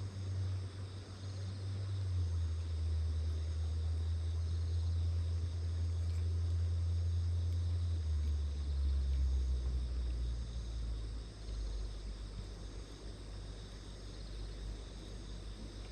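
Insects chirping steadily in the background, under a louder low droning hum that steps down in pitch a few times and fades toward the end.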